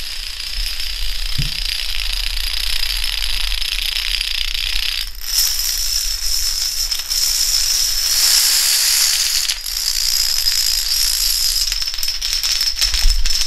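Hundreds of dominoes toppling in a chain reaction: a continuous rapid clatter of small tiles knocking over one another. It grows denser and louder about five seconds in, as a large field of dominoes goes down.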